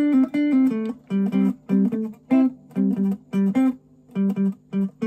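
Fender Telecaster Thinline electric guitar picking out a single-note melody, one note at a time, mostly on pentatonic scale tones, with a brief pause about four seconds in.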